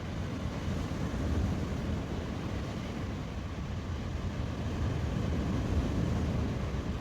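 Steady low rumble of wind buffeting the microphone by the sea, with no distinct events.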